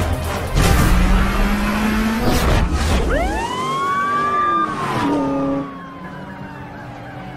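A car engine revs, slowly rising, over the first couple of seconds. About three seconds in, a police siren winds up, holds, then slowly falls away.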